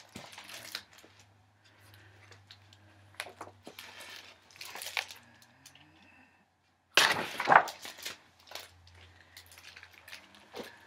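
Paper rustling and crinkling as the pages of a large picture book are turned and handled close to the microphone, in several irregular bursts, the loudest about seven seconds in.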